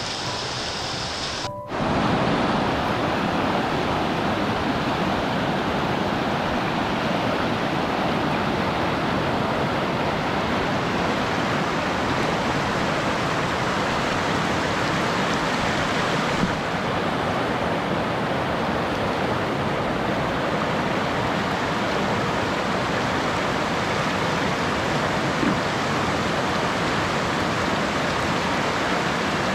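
Flooded mountain creek rushing through whitewater rapids: a loud, steady rush of water that cuts in suddenly about two seconds in, after a brief stretch of music.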